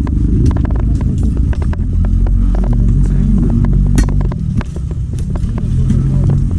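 Diesel engine of heavy earth-moving machinery running under varying load, its note rising and falling, with scattered sharp knocks and clanks.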